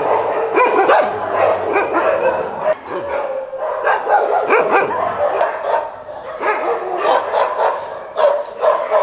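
Many caged shelter dogs barking and yelping at once, a continuous, overlapping chorus without a break; the dogs are aggressive.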